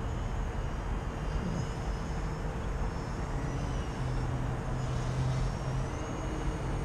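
Small electric RC plane's brushless motor and propeller (Emax 2206 1500 kV motor with an APC 8x4.1 3D prop) whining faintly in flight, its high pitch rising and falling with the throttle, over a steady background rumble.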